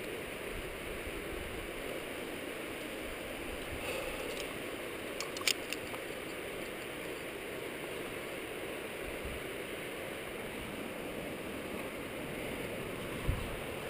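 Steady rushing noise of wind on a helmet-mounted camera, with a few sharp clicks about five and a half seconds in and a single low thump near the end.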